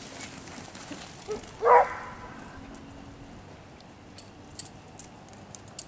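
A hunting dog gives a single short bark about a second and a half in. Faint clicks and rustles follow.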